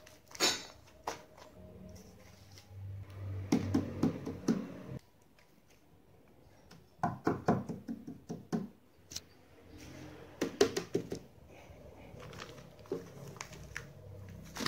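Tape-covered paper squishies crinkling and rustling as they are squeezed, handled and set down on a table, in several bursts of crackling with short pauses between.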